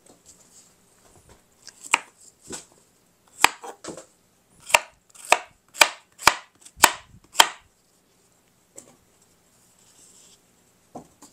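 Knife chopping vegetables coarsely on a cutting board: a run of sharp knocks, about two a second, that stops about three-quarters of the way through.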